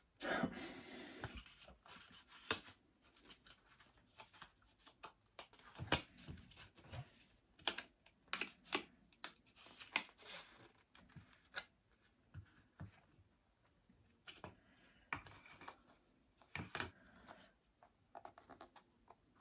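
Paper and cardboard packaging being handled: a rustle of paper sheets in the first second or so, then scattered light taps and clicks as a paper sachet and a cardboard box insert are picked up and set down.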